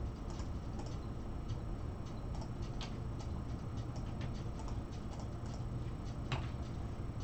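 Scattered clicks of a computer mouse and keyboard, irregular and a few per second, with louder ones about three seconds and six seconds in, over a low steady hum.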